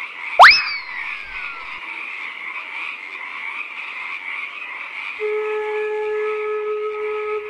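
A steady night chorus of frogs croaking. About half a second in comes one loud swooping sound effect that rises sharply and then falls away. A soft flute melody begins near the end.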